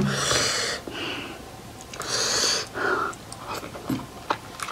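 Close-miked mouth sounds of someone eating momo: two sharp hissing intakes of breath or slurps about two seconds apart, then small lip smacks and clicks near the end.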